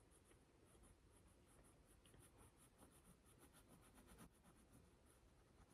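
Near silence, with faint pencil scratching on paper as a drawing is sketched.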